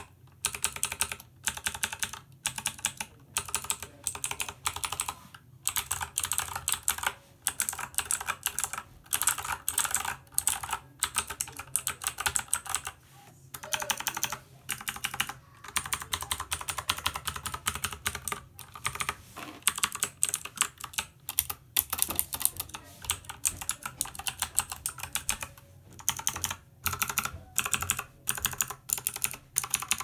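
Computer keyboard being typed on quickly: rapid runs of clicking keystrokes in bursts, with short pauses between them.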